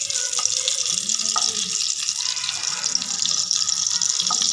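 Chicken patties shallow-frying in hot oil in a pan: a steady sizzle with fine crackling pops, and a brief scrape of a spatula near the end as one patty is lifted.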